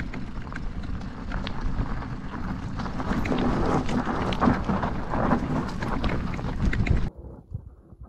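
2019 Marin Mount Vision 8 full-suspension mountain bike ridden down a rocky, cobbly trail: wind buffeting the camera microphone over tyres crunching on loose stones and frequent rattles and knocks from the bike, louder from about three seconds in. It cuts off suddenly near the end, leaving only faint sound.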